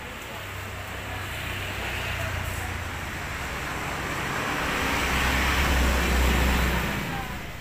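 A motor vehicle passing on the road close by, its engine and tyre noise growing louder to a peak about six seconds in, then fading.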